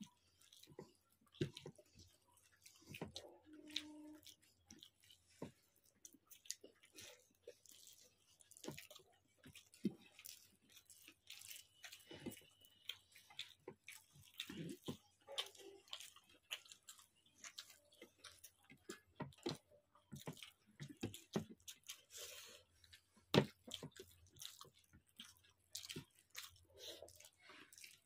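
Two people eating rice by hand from plates: faint chewing and mouth noises, with many small irregular clicks and taps as fingers scrape the plates.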